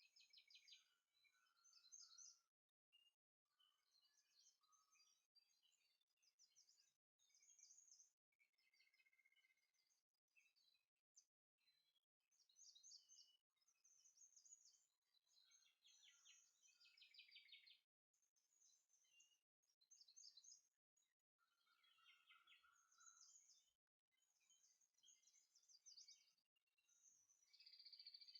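Faint songbirds chirping and twittering, many short high calls one after another, with brief moments where the sound drops out completely.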